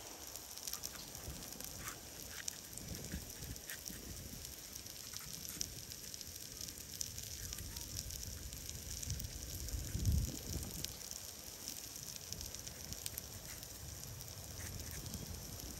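Campfire burning, crackling with scattered small pops over a soft hiss. A low rumbling swell rises and falls about ten seconds in.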